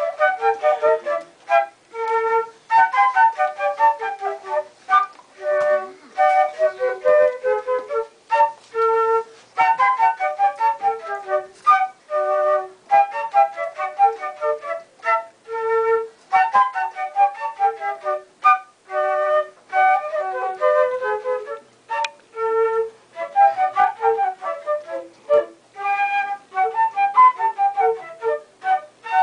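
Concert flute playing a melody in short phrases, with brief pauses for breath between them.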